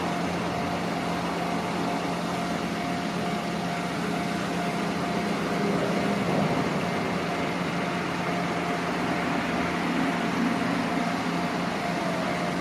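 Steady running hum of a vehicle, with two constant tones over an even rushing noise and a slight swell about halfway through.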